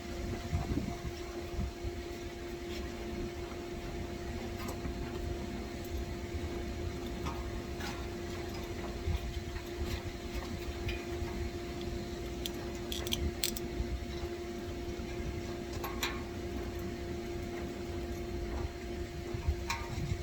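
A steady mechanical hum over a low rumble, with scattered light clicks and taps from hand-tool work on an air-conditioner condenser unit, a few of them close together in the middle.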